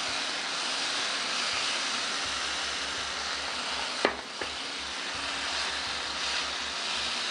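Onions, tomato and green chilli sizzling in a hot frying pan with oyster sauce and a little water just added, stirred with a spatula. A steady sizzle, with two sharp knocks about four seconds in.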